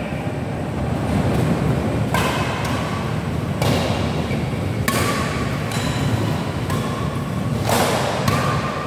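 Badminton rally: rackets strike the shuttlecock sharply every second or so, over a steady low rumble of a large echoing hall.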